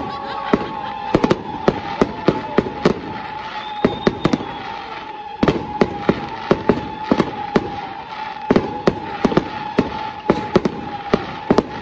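Fireworks display: a rapid, irregular series of sharp bangs from bursting shells, two or three a second with short lulls between. A steady high tone runs underneath.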